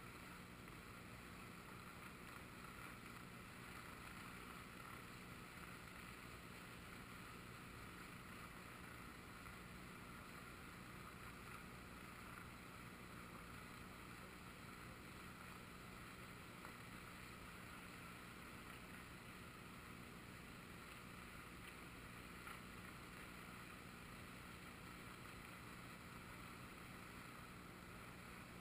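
Faint, steady rush of a river in flood, its fast brown water running just below the microphone.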